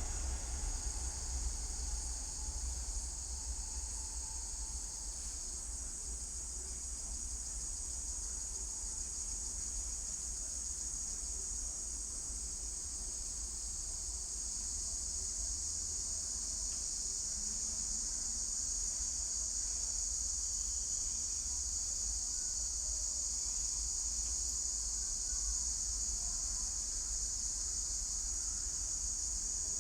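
Steady high-pitched insect chorus, a continuous unbroken shrill drone, over a low rumble of distant background noise.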